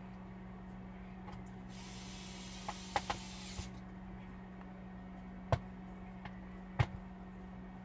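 Sharp clicks and taps of small hard parts being handled during laptop disassembly, about half a dozen, the two loudest late on, over a steady low hum. A soft hiss lasting about two seconds starts near two seconds in.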